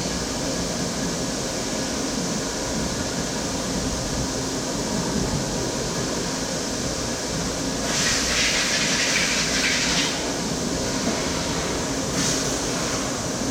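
CNC machine running steadily, with a louder burst of hiss about eight seconds in lasting some two seconds, and a shorter hiss near the end.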